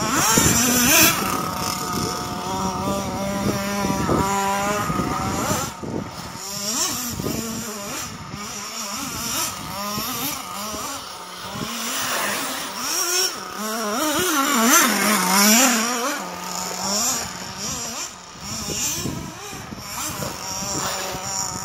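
Electric motors of several radio-controlled cars whining, their pitch rising and falling again and again with the throttle as they drive round a snowy track.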